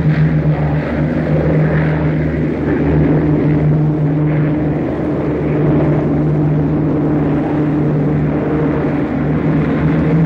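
Propeller-driven piston-engined aircraft in flight: a steady, deep engine drone with a low rumble beneath it.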